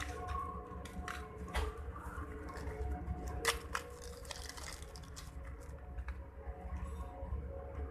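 Clear plastic bags crinkling and rustling in the hands, with scattered small clicks and crackles, as packets of spring feeder fishing rigs are handled over a plastic tackle box.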